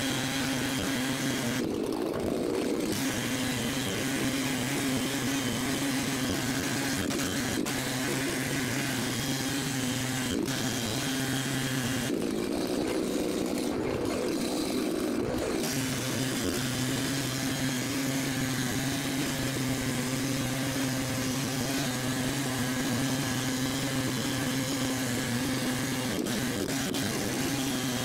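Ported Echo 590 chainsaw with a 42-inch bar running at a steady pitch through a milling cut in white oak.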